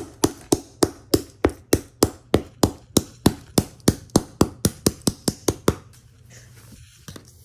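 Rapid, evenly spaced hard plastic knocks, about four a second, as a yellow plastic tool is struck repeatedly against small plastic pieces to smash them. The knocking stops about six seconds in.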